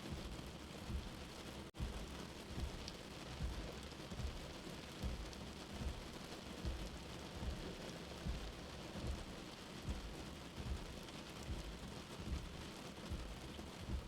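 Steady rain with a soft, low heartbeat thump about every 0.8 seconds underneath, a mixed sleep soundscape. There is a split-second gap in the sound a little under two seconds in.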